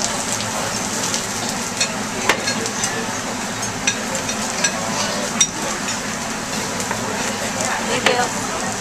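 Onion slices sizzling steadily on a hot teppanyaki griddle, with the chef's metal spatula and fork clicking against the steel plate several times.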